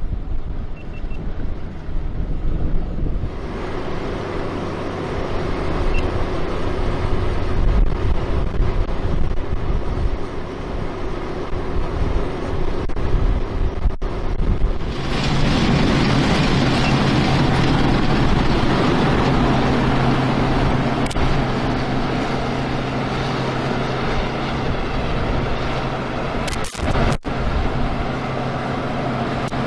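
Wind buffeting the microphone over a large engine running steadily. About fifteen seconds in the sound steps up abruptly to a louder, steady engine hum.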